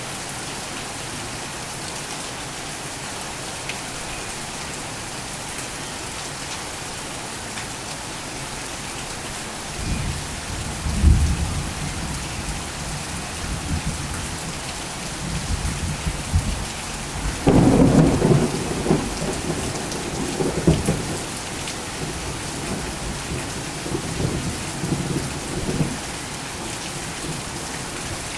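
Heavy rain falling steadily, with rumbles of thunder coming in about ten seconds in and swelling loudest a little past the middle before fading.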